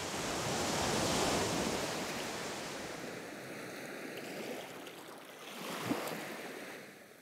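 Surf washing onto a beach: a soft, even rush of waves that swells about a second in and again near the end, then fades out.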